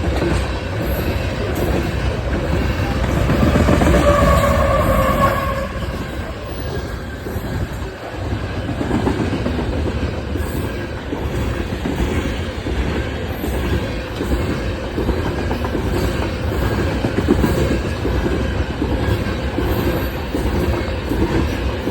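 Coal train's hopper cars rolling past, steel wheels running on the rails, with a brief wheel squeal about four seconds in.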